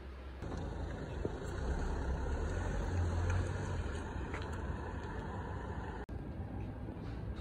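Steady low rumble of a running vehicle engine with hiss of moving traffic, coming in louder about half a second in and cutting out for an instant near six seconds.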